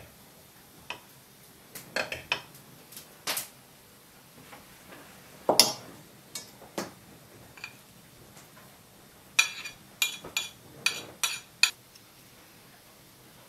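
A metal spoon clinking and tapping against a glass jar and an enamel bowl: scattered short clinks and knocks, coming in small clusters with quiet gaps between.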